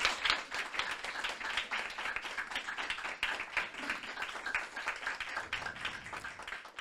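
Audience applauding at the close of a poetry recitation, a dense patter of many hands that slowly thins out towards the end.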